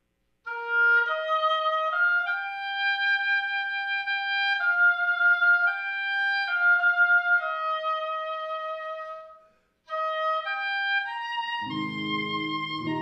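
Oboe playing a slow solo melody of long held notes, with a short pause for breath about ten seconds in. Near the end an electric guitar comes in with chords underneath.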